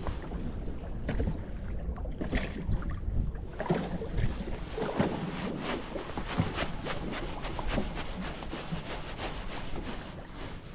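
Wind buffeting the microphone on an open boat, over water lapping at the hull, with a run of light, rapid ticks from about four seconds in.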